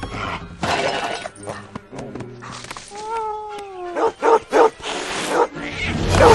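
A dog barking: a drawn-out call that falls in pitch, then three short barks in quick succession, over background music.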